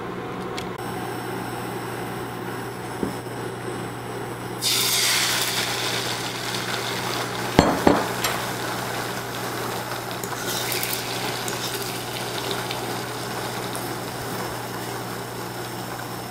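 Beaten eggs sizzling in a hot nonstick frying pan on an induction cooktop, the sizzle starting suddenly about four and a half seconds in and slowly easing off. A few sharp knocks of a utensil against the pan come about three seconds later.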